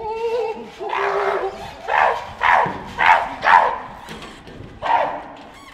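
Chimpanzees calling: a couple of drawn-out, wavering hoots, then about five short, loud bark-like calls in quick succession.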